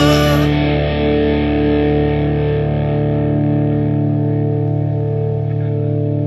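Rock music: a held, distorted electric guitar chord with effects ringing on and slowly fading. The brightest high end drops away about half a second in.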